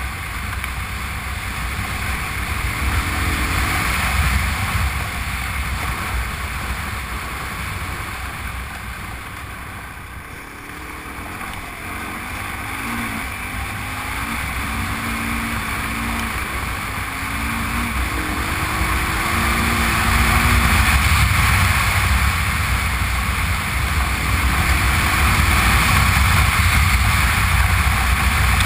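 Honda Transalp's V-twin engine running under way, with wind noise on the action camera. The engine eases off about ten seconds in, then picks up and runs louder through the second half.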